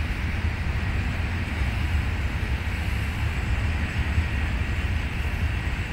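Petronas urea freight train's wagons rolling past on the track: a steady low rumble with a hiss above it.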